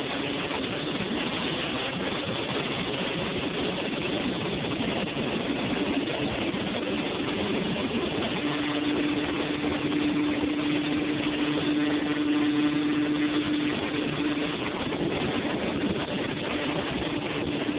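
Honda TRX250R quad's two-stroke single-cylinder engine running under way, heard on board while riding. About halfway through the engine settles on one steady note for several seconds, and takes it up again near the end.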